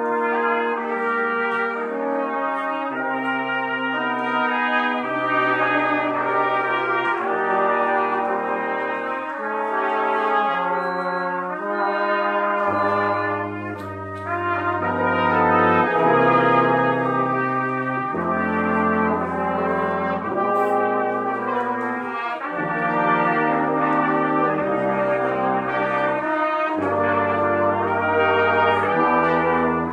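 Brass ensemble of trumpets, French horn, trombone and tuba playing together, held chords moving over a tuba bass line that steps from note to note, with a brief break about fourteen seconds in.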